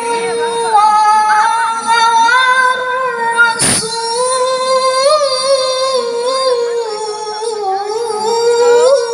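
A child's high voice reciting the Quran in melodic tilawah style, holding long notes with wavering ornamental turns. A single sharp click about three and a half seconds in.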